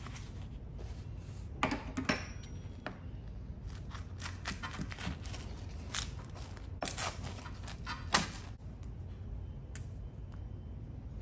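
Pizza cutter wheel rolling through a Neapolitan pizza's crisp, charred crust on a plastic cutting board: a series of crunchy crackles and clicks in several short bursts, the loudest about two seconds in and again near eight seconds.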